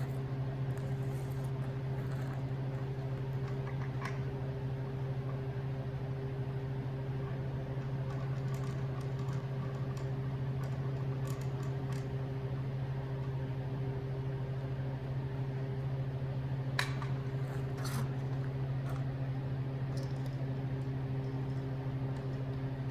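Steady low machine hum with a few faint metallic clicks, from a flash hider being unscrewed from one suppressor and threaded onto another.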